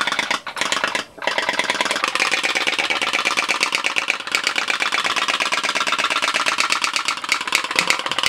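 Pop-pop steam boat engine running: a fast, even putt-putt pulsing as the candle-heated engine pushes water in and out of its straws. The pulsing drops out briefly twice in the first second or so, then runs steadily.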